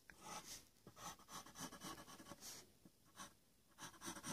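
Pencil sketching on paper in a run of short, faint scratching strokes, with a pause of about a second shortly before the end.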